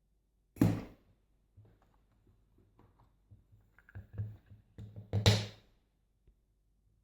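Two sharp knocks, about half a second in and about five seconds in, with small clicks and taps between them: a BKS euro cylinder lock being handled as it is opened up after picking.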